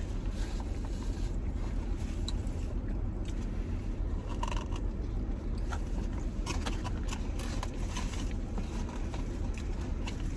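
Chewing and food-wrapper rustling, with scattered small clicks and crunches, over a steady low rumble.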